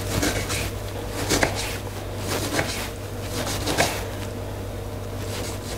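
Kitchen knife slicing through a lemon and knocking on a wooden chopping board, about four cuts a second or so apart.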